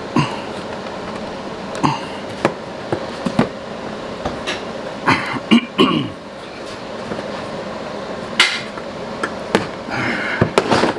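Plastic bumper cover knocking and clicking as it is pushed up and pulled free of its mounting tabs: irregular knocks and short clatters, over a steady hum of a fan or air conditioning.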